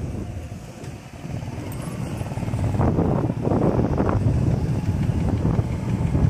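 Wind buffeting the microphone, an uneven low rumble that swells and surges about halfway through.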